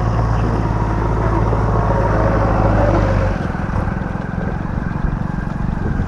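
Motorcycle running along the road at moderate speed: a steady low engine drone with a haze of road and wind noise. The low drone eases off a little over three seconds in.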